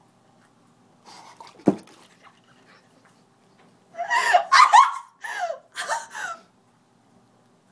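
A single sharp knock about a second and a half in, then a person laughing in several loud bursts in a small room.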